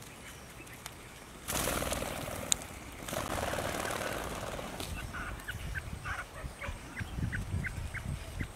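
Young quail: a burst of wing fluttering about a second and a half in, then a run of short, high peeps about three a second, with soft low thumps beneath.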